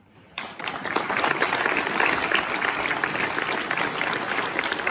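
Audience applause that breaks out suddenly about half a second in, then carries on as dense, steady clapping.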